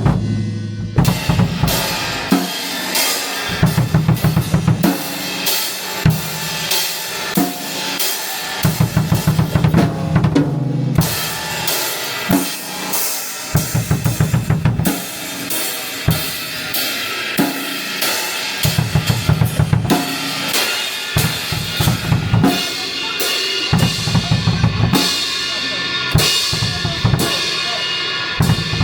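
Drum kit being played: fast runs of bass-drum strokes alternate with snare hits and cymbal crashes. There are short breaks about a second in and again near ten seconds in.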